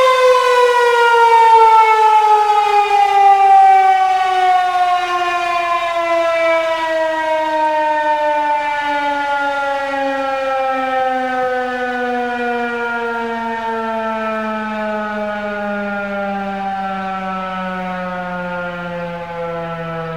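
Federal Signal 2001-130 electromechanical outdoor warning siren winding down at the end of its alert test. Its tone slides slowly and steadily lower in pitch while fading.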